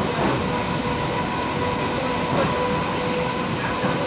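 Passenger train running, heard from inside the carriage: a steady rumble of wheels on the track with a steady whine over it.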